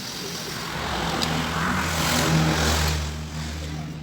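A vehicle engine running with a steady low hum, growing louder through the middle and easing off near the end.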